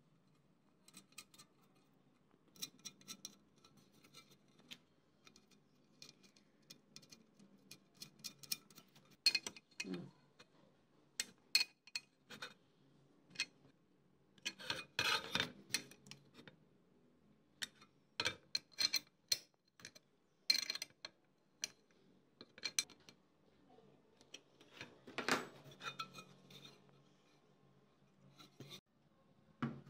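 Small bolts and nuts being fitted and tightened on a sheet-metal fan blade hub with a small open-end spanner: scattered metal clicks, taps and short scrapes, with a louder cluster about halfway through.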